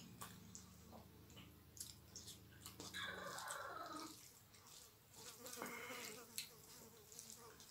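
Faint eating sounds: fingers mixing and squishing rice with dal and fish curry on a steel plate, with chewing and small mouth clicks.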